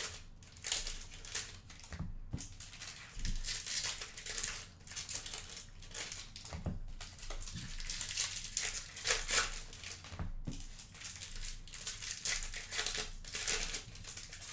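Foil trading-card pack wrappers crinkling and tearing as packs are ripped open, with cards rustling and sliding in the hands; repeated short scratchy rustles with a few soft taps on the table.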